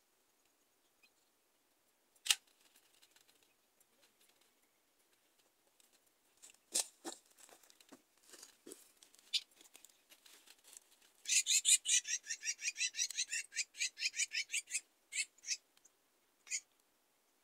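A bird's rapid chattering call, a run of about nine short notes a second lasting some three and a half seconds, preceded by a few sharp clicks and followed by a couple of single notes.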